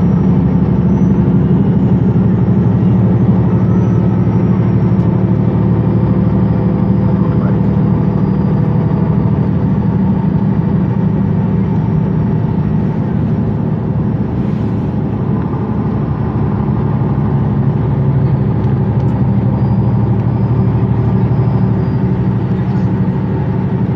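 MAN Lions City A20 EEV city bus's diesel engine idling steadily while the bus stands at a stop, a low, even hum.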